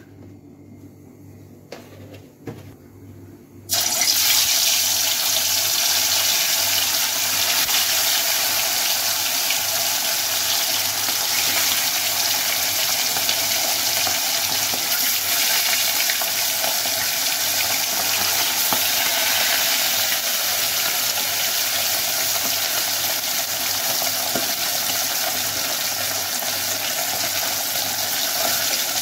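Fish pieces going into hot oil in a karahi: a sudden loud sizzle about four seconds in, then steady, hard sizzling of the fish frying.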